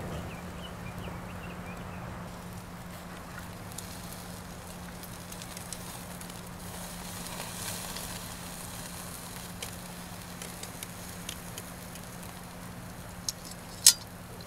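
Beef steak sizzling on a wire-mesh grill over a charcoal fire, with the coals crackling in small scattered clicks. A sharp pop from the fire near the end is the loudest sound.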